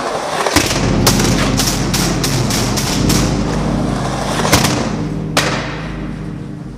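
Skateboard wheels rolling on a hard station floor with a steady low rumble, broken by a series of sharp clacks and knocks from the board.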